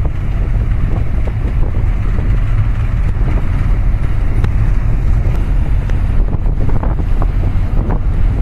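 Wind buffeting the microphone over a steady low rumble from a boat under way, with water sloshing and splashing, a few splashes standing out near the end.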